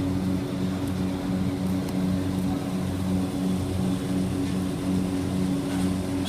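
Steady low mechanical hum of a running motor, pulsing evenly about twice a second.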